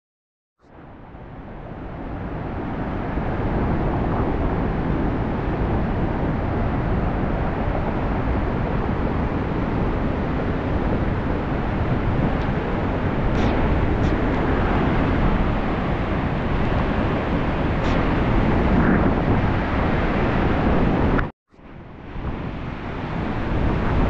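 Steady roar of a waterfall and rushing river water, fading in just after the start. It cuts out briefly about 21 seconds in and then resumes.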